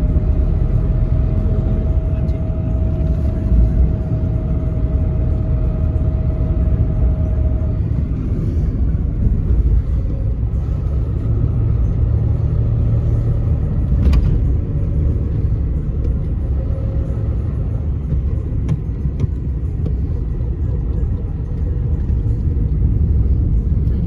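Inside a moving taxi: a steady low rumble of road and engine noise. A faint steady whine runs for the first several seconds and returns more faintly in the middle, with a single click about fourteen seconds in.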